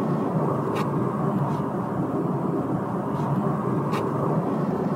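Steady in-flight cabin noise inside a Boeing 747-8, an even low rushing drone, with two short clicks, one under a second in and one about four seconds in.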